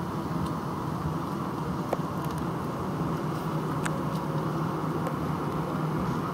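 Steady rumble of engines, airflow and wheels heard inside the cabin of a Boeing 747-400 rolling on the ground after landing, with a couple of faint clicks.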